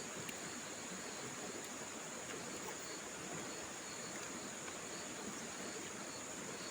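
Steady high-pitched insect chorus over an even background hiss, with a few faint ticks.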